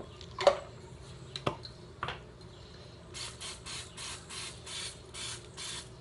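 A few soft knocks, then something shaken rapidly from about halfway through, a rhythmic rattling hiss at about four shakes a second.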